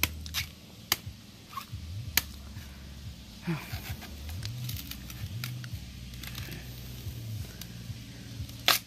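Machete chopping into the husk of a green coconut: a series of sharp chops at irregular intervals, the loudest near the end.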